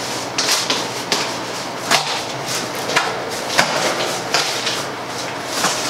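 Large cardboard shipping box being worked open by hand: scraping and rustling cardboard with several sharp clicks and knocks as its staples are worked loose.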